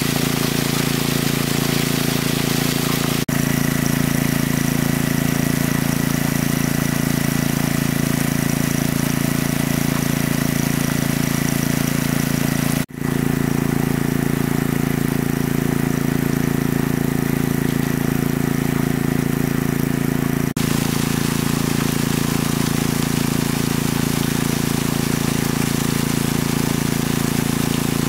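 Engine of a large water pump running steadily at constant speed, with a brief dropout about halfway through.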